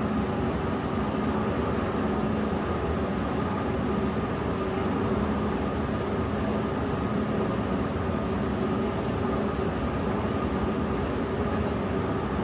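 Steady hum of an electric London Underground train at a station, with several held tones over a constant noise that neither rises nor falls.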